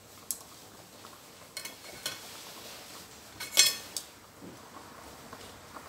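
Metal kitchen utensils clinking: a few light clicks and, about three and a half seconds in, one louder ringing metallic clink.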